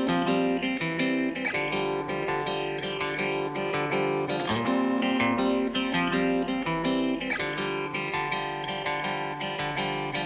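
Background music led by a plucked guitar, with notes struck in a steady rhythm.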